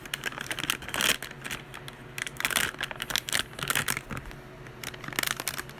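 Packaging of a toy blind box being handled and opened by hand: irregular crinkling, tearing and small clicks in short bursts.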